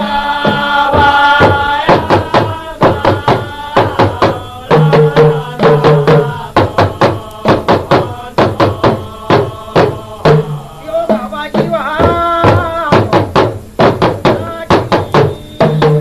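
Hausa song: a voice singing over a steady rhythm of drum beats.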